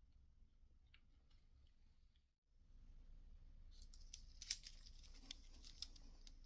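Mostly near silence, then from about four seconds in a faint scatter of small crackles and ticks as solder melts on the soldering iron and its flux sputters.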